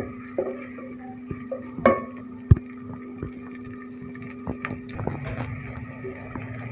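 Sliced onions frying in oil in an aluminium pot, sizzling as a wooden spoon stirs them, with a few sharp knocks of the spoon against the pot, the loudest about two and a half seconds in. A steady low hum runs underneath.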